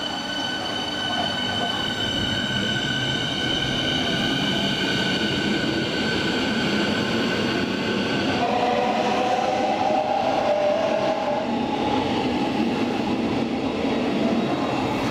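A Berlin S-Bahn class 483 electric train pulls out and accelerates past, its electric traction whine holding a stack of steady high tones over rolling noise. About eight and a half seconds in, the high whine gives way to a lower set of tones as the rest of the train passes.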